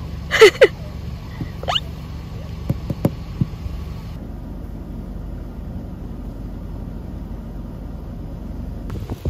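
Car engine idling, a steady low rumble heard from inside the car cabin, with a few short, high-pitched squeaks in the first two seconds.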